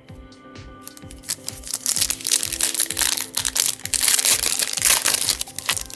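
Foil trading-card pack wrapper being torn open and crinkled by hand, a dense crackling that starts about two seconds in and fades near the end, over background music with a steady beat.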